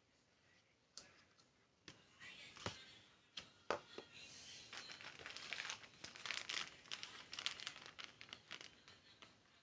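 Plastic containers and packaging handled in a clear plastic storage box: a few light knocks, then steady crinkling of plastic packets from about four seconds in.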